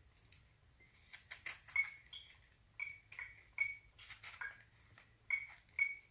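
Repeated light clinks of a metal utensil against a custard cup, each with a short ringing tone, as apple skin is worked off the top of a stuffed apple.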